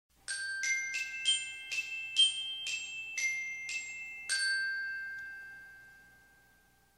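Short intro jingle of bright, bell-like struck notes in a glockenspiel-like tone: about ten quick notes, then a last note that rings on and fades away.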